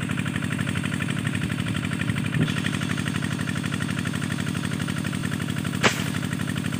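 Engine of an irrigation water pump drawing from the river runs steadily with an even, rapid chug, a noise the shooter calls a bit loud. Near the end a single sharp crack cuts through it: the airgun firing.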